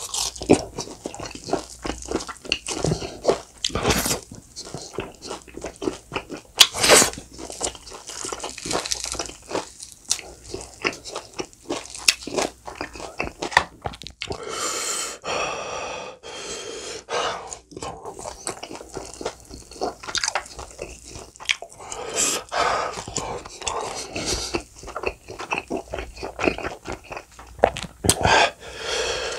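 Close-miked biting and chewing of crispy bone-in fried chicken coated in thick, sticky hot sauce: irregular crunches as the coating breaks, with wet smacking and chewing between bites.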